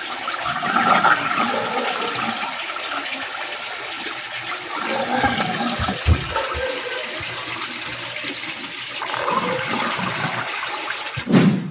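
Pond water rushing steadily into a DIY skimmer made from a cut plastic bottle on a submersible pump's intake, swirling down through the bottle.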